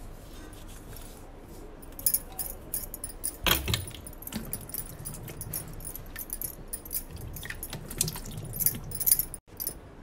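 Glass bangles on a wrist clinking and jingling in many small, irregular clinks as the hands work, with one louder knock about three and a half seconds in.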